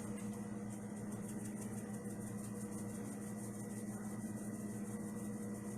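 Steady low electrical or appliance hum with a faint constant whine, unchanging throughout.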